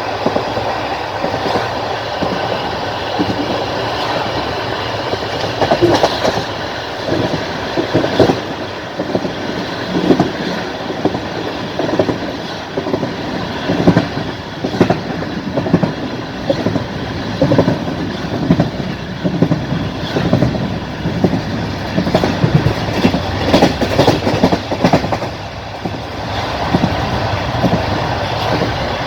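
Passenger train carriage running at speed: a steady rolling rumble with the wheels clattering over rail joints in short bursts every couple of seconds.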